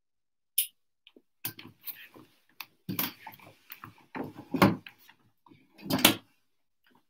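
Handling noise from the recording device being adjusted close up: a sharp click, then a run of irregular knocks, bumps and rustling, with the two loudest bumps about four and a half and six seconds in.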